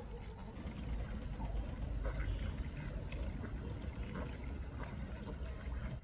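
Flock of ducks paddling and splashing in shallow paddy water: scattered small splashes and sloshing over a steady low rumble.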